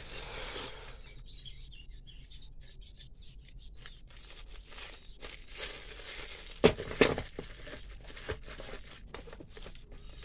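Plastic wrapping crinkling and rustling as bagged hand tools are handled, with two sharp knocks about seven seconds in as a tool is set down in the hard plastic carrying case.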